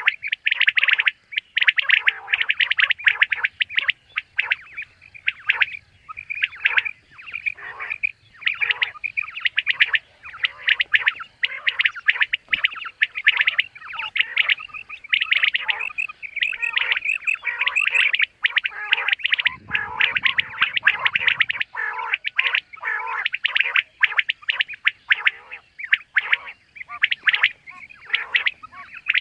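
Common quail calling over and over in quick, overlapping chirps.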